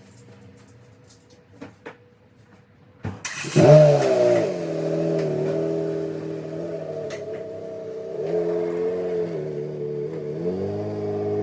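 Car engine started: a few faint clicks, then a short burst of cranking about three seconds in. The engine catches with a quick flare in revs, settles to a steady idle, and rises in revs briefly once more later on.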